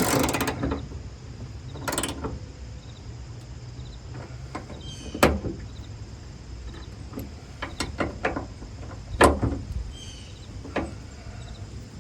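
Hand-tool and metal-bracket handling while a light bracket is bolted to a car: a few short scrapes, then scattered clicks and knocks, the loudest about nine seconds in.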